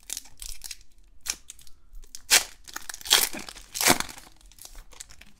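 Foil wrapper of a baseball card pack being torn open and crinkled by hand: a run of sharp tearing and rustling bursts, the loudest tears about two to four seconds in.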